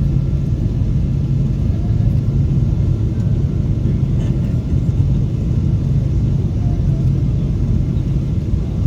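Jet airliner taking off: a steady, loud, low rumble of engines and airflow.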